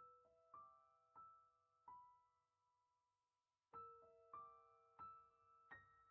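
Quiet background piano music: slow single notes, a run of four, a pause of nearly two seconds, then four more, each note ringing on as it fades.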